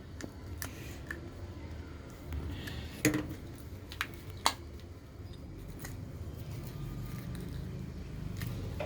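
Flathead screwdriver prying at the glued plastic case of a phone charger: scattered sharp clicks and scrapes, the loudest about three, four and four and a half seconds in.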